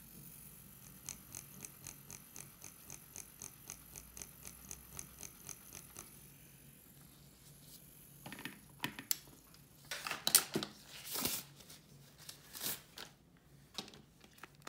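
Light, regular ticking, about three or four ticks a second, for the first six seconds. From about eight seconds in come louder, irregular rustling and rubbing sounds, loudest around ten seconds in.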